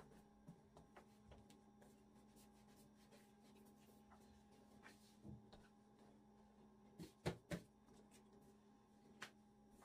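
Quiet handling of a long, thin wooden rolling pin as sheets of baklava dough are rolled on a wooden table: faint light taps and rubbing, with two sharp knocks in quick succession about seven seconds in. A faint steady hum sits underneath.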